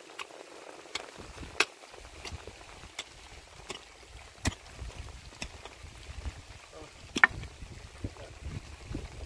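Pick-mattock striking stony soil: sharp knocks at uneven intervals, roughly one a second. A low rumble of wind on the microphone comes in about two seconds in and stays under the knocks.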